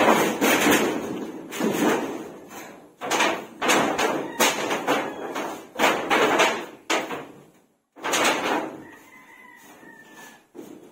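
Corrugated metal roofing sheets banging and rattling as they are worked on, in a run of loud crashes that each ring out briefly and fade. There is a pause just before the last burst.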